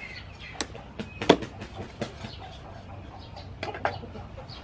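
Knife chopping through raw pork ribs on a wooden cutting board: a few irregular, sharp knocks, the loudest about a second in and a pair near the end.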